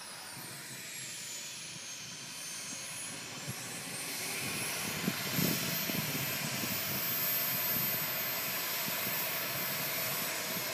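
P160SE model jet turbine of an RC SkyMaster Viper running as the jet taxis on the runway. Its high whine dips in pitch early on, rises again and then holds steady over a rushing noise, growing louder as the jet comes closer.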